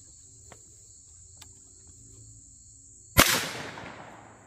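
A single .17 HMR rifle shot about three seconds in, its report fading away over about a second, over a steady high buzz of insects.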